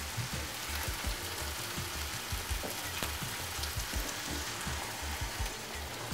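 Chicken, onion and rice frying in a hot non-stick pan, sizzling steadily as measured water is poured in.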